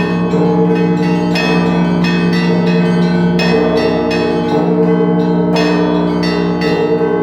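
Russian Orthodox church bells rung by a single ringer in the traditional zvon style. The deep sustained hum of the large bells sounds beneath quick, steady strikes of the smaller bells.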